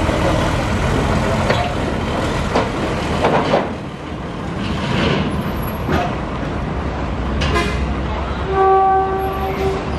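Loaded diesel cargo truck driving slowly onto a ferry's steel loading ramp, its engine rumbling steadily, with a few sharp knocks a little after three seconds in. Near the end a horn sounds once, held for about a second.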